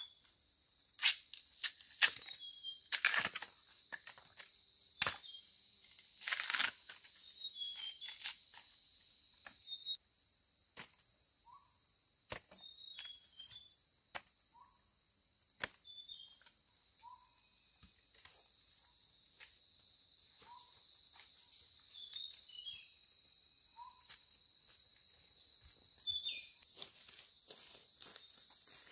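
A steady, high-pitched chorus of crickets and other insects. Sharp snaps and tearing sounds of plant material come in quick succession in the first several seconds, then thin out. A faint short call repeats every few seconds through the middle.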